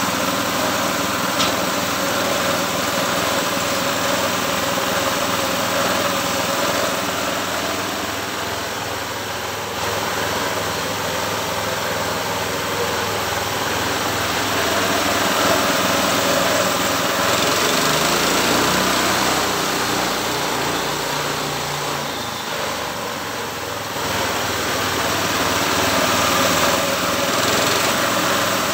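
Engine of a homemade sawmill running steadily, its low note shifting for a few seconds about two-thirds of the way through.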